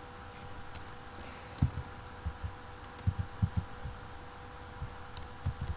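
Computer keyboard keystrokes, picked up mostly as dull low thumps through the desk, in short irregular runs with pauses between them, over a steady faint electrical hum.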